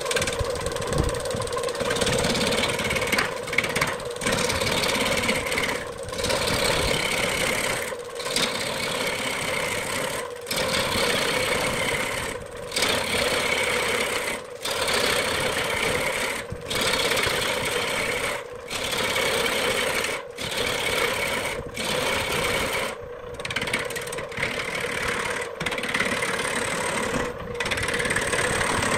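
Wood lathe spinning a large wooden blank while a hand-held turning tool cuts into it: a steady motor hum under the coarse scraping and rasping of the tool shearing off chips. The cutting noise breaks off briefly about every two seconds.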